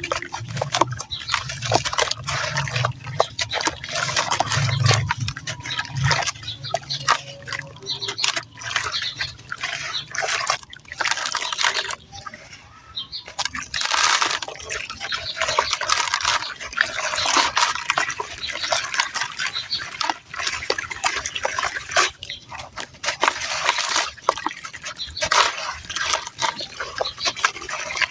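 Dry red sand crushed in quick, dense crunches and crackles, with a short pause about halfway through.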